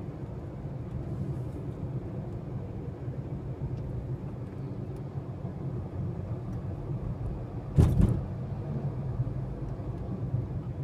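Steady engine and tyre drone of a car driving at road speed, heard from inside the cabin. About eight seconds in comes a sharp double thump, the tyres going over a bump or joint in the road.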